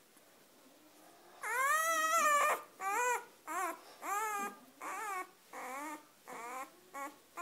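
Newborn Weimaraner puppy crying: one long, high squeal about a second and a half in, then a string of about seven shorter cries, each rising and falling in pitch, roughly two a second.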